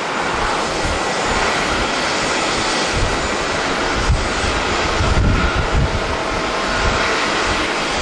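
Twin-engine jet airliner climbing away after takeoff, its engines at climb power giving a steady, broad, loud noise. Gusts of wind buffet the microphone with low thumps a few times in the second half.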